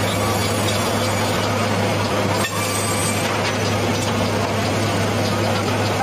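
Sawmill machinery running steadily: a constant low motor hum under dense, even mechanical noise.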